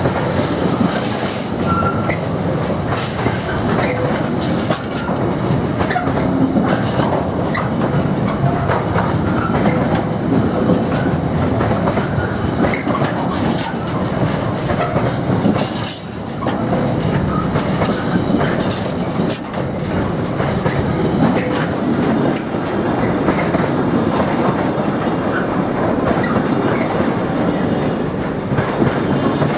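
A train passing close by with a continuous loud rumble and many short knocks from its wheels on the track, dipping briefly about halfway through.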